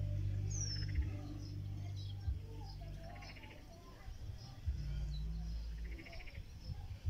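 Small birds chirping, with two short rapid trills about three and six seconds in, over wind rumbling and buffeting on the microphone.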